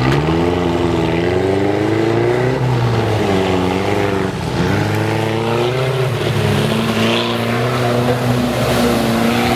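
An off-road 4x4's engine revving hard while the vehicle drives through water. The pitch rises and falls several times, then holds steadier in the second half.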